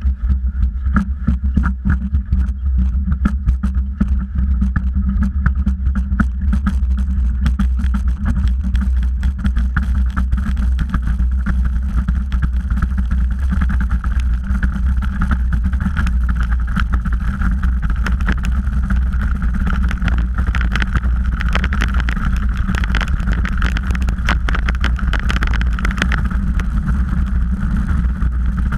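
Bobsleigh running down an ice track at speed: a loud, continuous low rumble from the runners on the ice, with a steady scraping hiss and constant knocks and rattles from the heavy vibration. It grows harsher past the middle as the sled gathers speed.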